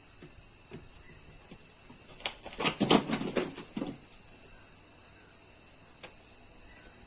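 Knife slicing a banana lengthwise, a quick run of knocks and taps lasting about a second and a half, a little over two seconds in, with one more light click later. A steady high hiss runs underneath.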